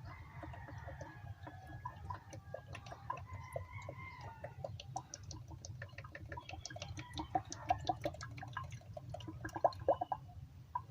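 Motor oil glugging out of a quart bottle into a 5.7 Hemi's oil filler, in irregular gurgling gulps that come stronger toward the end as the bottle empties.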